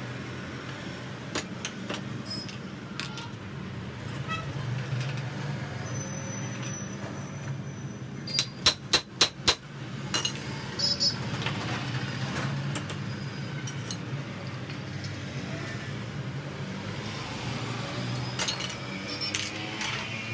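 Metal clicks and knocks from a Royal Enfield front fork leg being handled and worked by hand, with a burst of about five sharp knocks in quick succession near the middle, over a steady low hum.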